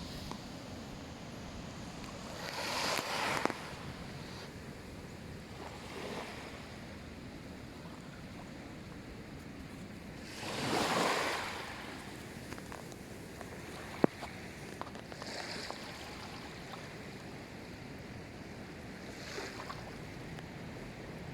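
Small waves breaking and washing up on a beach, the largest about halfway through, over a steady hiss of surf. A single sharp click comes a few seconds after the biggest wave.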